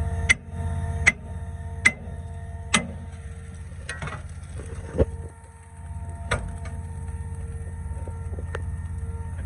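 Concrete line pump's engine running steadily, with sharp metallic clanks about once a second at first, then further apart.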